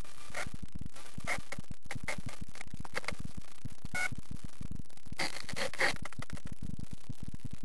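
Handling and wind noise on a camera microphone: a steady, choppy low rumble with scattered scrapes and rustles, the strongest about five to six seconds in.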